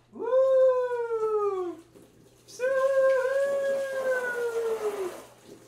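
Two long howls, each sliding down in pitch as it ends, the second one longer.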